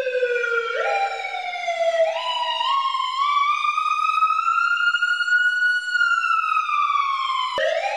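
Ambulance siren wailing: its pitch climbs slowly for several seconds, then falls slowly, and breaks off abruptly near the end into a new rise.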